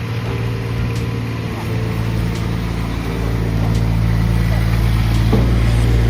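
ME1200 skid steer loader's engine running with a steady low drone that grows gradually louder, with a single short knock a little over five seconds in.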